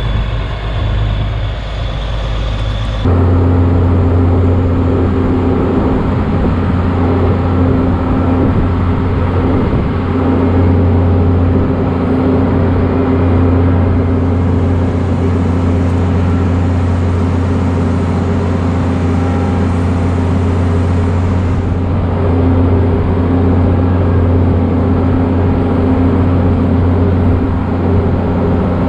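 Case IH 1660 combine running steadily at constant engine speed, a loud even drone that steps up sharply about three seconds in.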